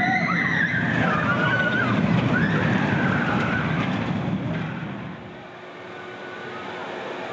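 Vekoma suspended looping coaster train running along its steel track, a loud low rumble with high wavering squeals over it. The rumble fades about five seconds in as the train moves away.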